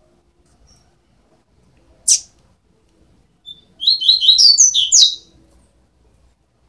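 Double-collared seedeater chicks, about 12 days old, calling. One sharp chirp dropping in pitch comes about two seconds in, then a quick run of high chirps lasts about a second and a half near the end.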